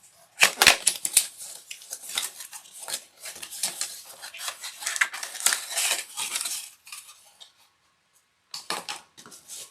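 Cardboard box being opened and its packaging handled: a quick run of scrapes, rustles and knocks. It stops for about a second near the end, then a few more follow.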